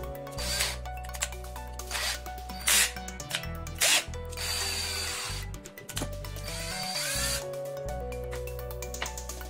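iBELL CD12-74 12-volt cordless drill driver's motor running in short bursts of about a second, while hands work its keyless chuck. Background music plays under it.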